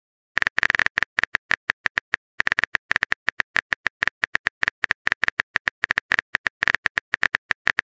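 Simulated phone keyboard typing sound effect: a rapid, irregular run of short key-tap clicks, starting about half a second in, with a brief pause around two seconds in.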